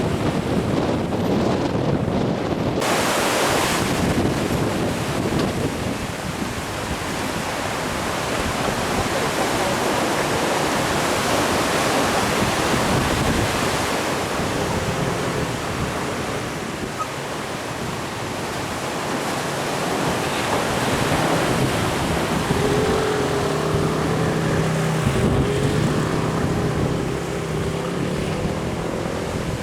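Sea surf washing onto the shore, a steady loud rush, with wind buffeting the microphone. A faint wavering tone sounds in the background about three-quarters of the way through.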